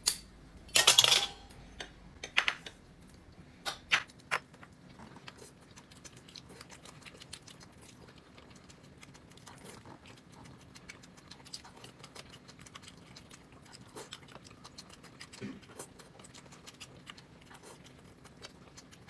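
Clinks and clicks of tableware during a meal: a few louder clinks in the first four seconds, then a steady run of faint small clicks.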